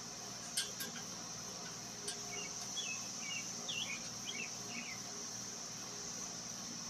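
Steady high-pitched insect drone, like crickets. A bird calls in a short series of chirps from about two seconds in until near the end, and two sharp clicks come within the first second.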